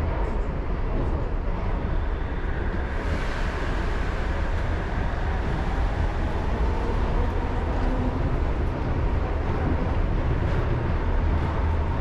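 Shonan Monorail's rubber-tyred suspended monorail car running, a steady low rumble with a faint whine that slowly shifts in pitch. A brief hiss rises about three seconds in.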